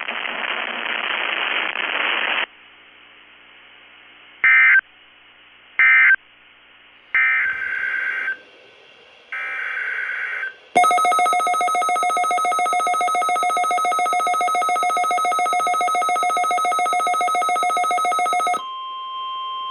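Weather radio static, then a NOAA Weather Radio SAME alert header: short warbling data bursts repeated several times. A loud, buzzy, rapidly pulsing alarm tone follows for about eight seconds, then gives way near the end to a steady single-pitch 1050 Hz warning alarm tone.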